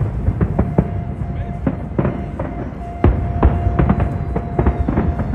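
Fireworks display: shells bursting in quick, irregular succession, sharp bangs over a continuous low rumble, with music playing alongside.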